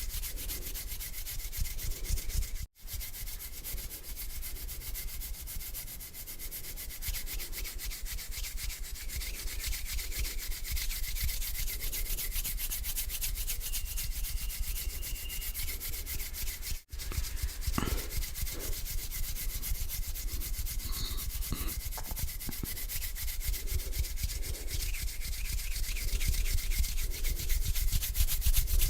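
Bare hands rubbing together close to the microphone, a continuous dry hiss. It breaks off twice for a split second.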